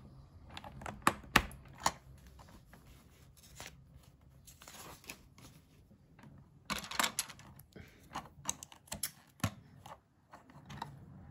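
Small plastic LEGO bricks clicking and clattering as they are picked up, set down on the tabletop and pressed together, the clicks coming thickest in the second half. About four to five seconds in, a brief paper rustle from an instruction booklet page being turned.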